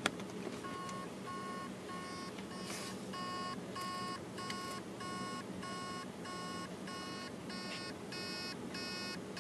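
Hard disk drive's spindle motor beeping in short, evenly spaced pulses, about one and a half a second, as it tries and fails to spin up the platters: the read/write heads are stuck on a platter.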